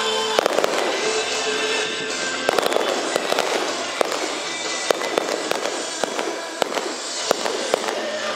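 Fireworks launching and bursting with many sharp pops and crackles in quick succession, over music playing throughout.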